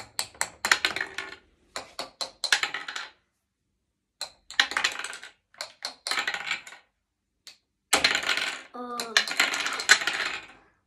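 Small plastic toy hammers tapping at the plastic ice blocks of a penguin ice-breaking game, with the knocked blocks clicking and clattering, in three bursts of rapid taps and rattles. A short vocal sound comes in near the end.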